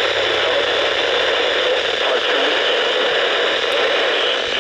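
Steady static hiss from a radio receiver tuned to a weak signal, as loud as the broadcast voice around it.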